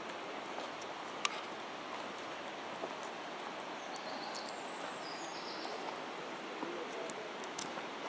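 Steady rushing of running water from the mountain stream below the trail, with one sharp click about a second in and a few fainter clicks near the end.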